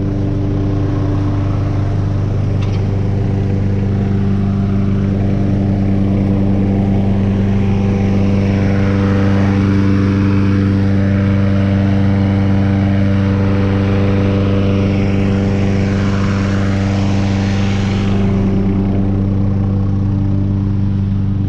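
Tractor and lawnmower engines running together at a steady speed while mowing. A rushing noise over the engine hum swells twice in the middle.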